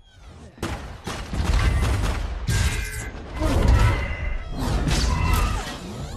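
Action-film battle sound effects: a dense run of crashes, impacts, booms and whooshes that starts suddenly about half a second in and comes in several loud clusters.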